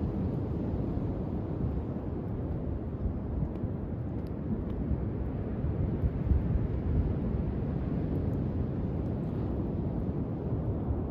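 Steady low rumble of wind buffeting the microphone at the shore, mixed with surf, with a few faint scattered crackles from a driftwood fire.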